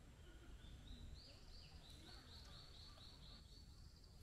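A faint series of short, high chirping calls, about four a second, each dipping slightly in pitch, over a low steady background rumble.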